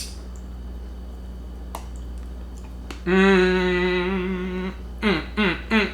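A man hums a long, steady, appreciative "mmm" with his mouth full, then several short falling hums, while eating a peanut butter bar. A few faint clicks come before it.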